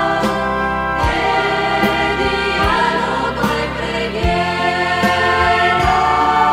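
A choir singing a hymn with instrumental accompaniment: long held chords that change about once a second, over a regular low beat.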